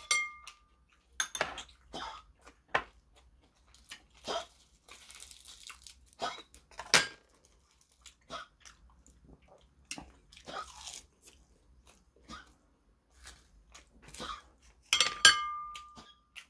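Close-miked chewing and crunching: a person eating crisp seasoned laver (gim) wrapped around noodles, in irregular crunches and crackles with wet mouth sounds. Near the end, a brief clatter of utensils with a short ringing tone.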